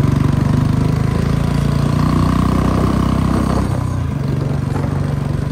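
Royal Enfield Bullet 350's single-cylinder engine running under way through an aftermarket short-bottle silencer. It grows louder about two seconds in and eases back a second and a half later.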